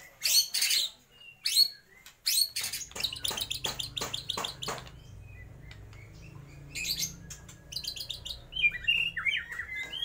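Caged white-rumped shama singing: short high bursts, then a fast run of sharp repeated notes, and a lower warble near the end, the kind of song that mimics other birds' calls.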